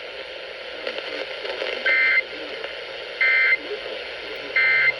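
Three short EAS data bursts, the end-of-message signal that closes an alert relay, each about a third of a second long and a little over a second apart. They sound over the hiss of a radio broadcast with faint talk underneath.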